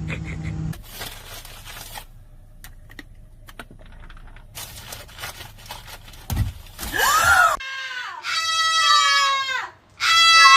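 An animal crying out twice: two loud, drawn-out calls that fall in pitch, just after a short rising-then-falling squeal. The calls are preceded by a steady hum that stops under a second in, then a few faint clicks and a low thump.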